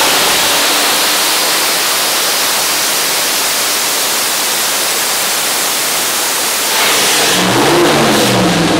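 Turbocharged Chevrolet LS V8 on an engine dyno making a full-throttle pull, a loud dense roar. About seven seconds in the throttle closes and the engine note drops and swings up and down as the revs come back down.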